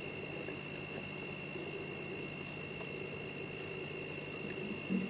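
Crickets chirring steadily as a continuous high trill.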